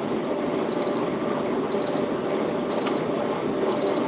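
Steady road and engine noise inside a truck cab at highway speed, with a short high beep repeating about once a second.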